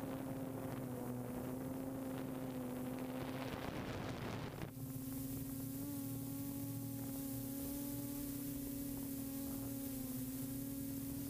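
Multirotor drone's motors and propellers humming with a steady pitch, over a rush of airflow noise that swells and then cuts off abruptly about four and a half seconds in.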